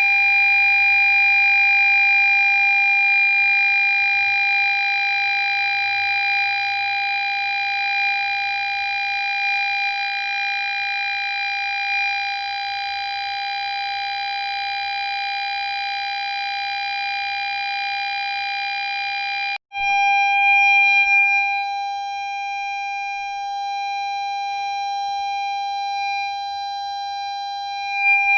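Ford Fiesta parking-sensor warning sounding as one continuous tone rather than separate beeps, the signal that an obstacle is very close. It cuts out for an instant about two-thirds of the way through and then resumes.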